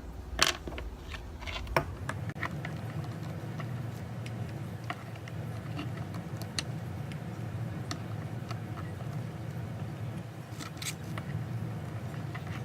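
Small clicks and taps of tools and tiny phone parts being handled during an iPhone screen teardown, a few sharper ones in the first two seconds and a cluster near the end, over a steady low hum.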